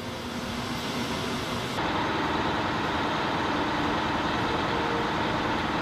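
Steady engine and wind noise inside a C-17 Globemaster III at its open door. About two seconds in, it changes to the steady drone of the C-17's four turbofan engines in flight.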